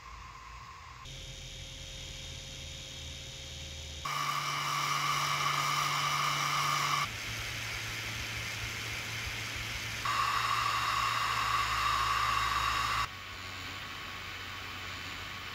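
3D printer part-cooling fans running in turn, single and dual 40 mm and 50 mm fans at full or half power: a steady whirring rush of air with a whine. The pitch and loudness change abruptly about every three seconds as one fan setup gives way to the next, and two of the setups are clearly louder than the rest.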